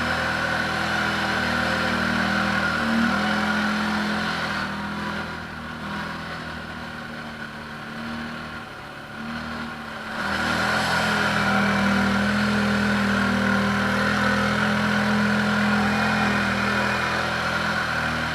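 ATV engine running at a steady speed. It drops quieter for several seconds partway through, then comes back up to its earlier level for the rest.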